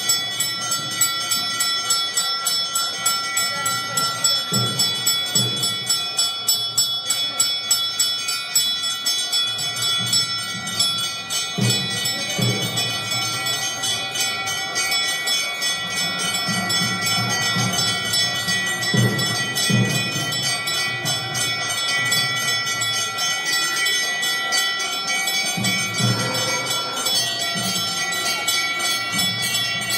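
Temple bells ringing continuously for the aarti lamp offering. They are struck rapidly at about three strokes a second at first, then merge into a steady ring, with low thuds now and then.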